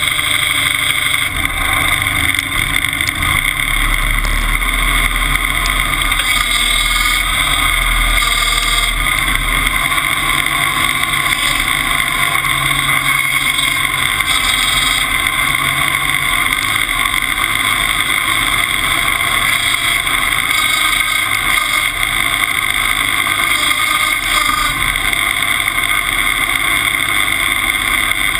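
Timberjack 201 log skidder's engine running steadily as the machine drives, heard close to its vertical exhaust stack.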